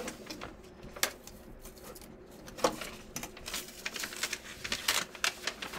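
A large sheet of Post-it easel pad paper being handled and flipped over on the wall: crackling and rustling paper with scattered clicks and taps, busiest in the second half.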